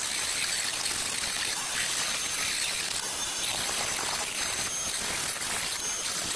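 Dremel rotary tool running at a steady speed, sanding the edge of a plywood seat: an even hiss of abrasion with a thin, high motor whine over it.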